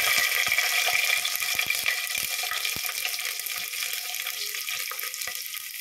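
Whole garlic cloves sizzling and crackling in hot oil with cumin seeds and whole spices, the sizzle gradually fading.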